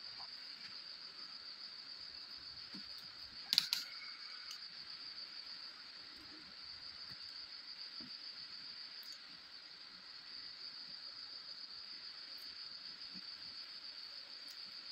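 Steady high-pitched chirring of crickets, with one sharp click about three and a half seconds in.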